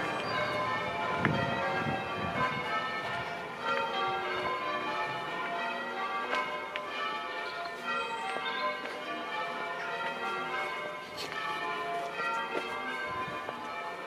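Church bells ringing in a continuous sequence, several bells struck one after another so their ringing tones overlap.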